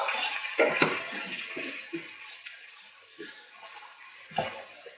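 Artichokes and broad beans sizzling in oil in a pot, the hiss slowly dying down, with a few light clicks.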